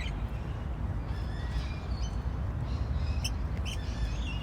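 Birds giving a few short, faint calls and chirps over a steady low rumble of wind.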